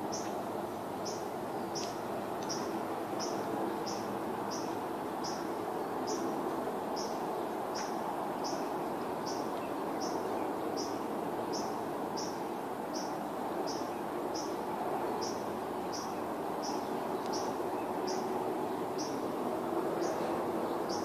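A short high chirp repeated very evenly, about one and a half times a second, over a steady hum of background noise.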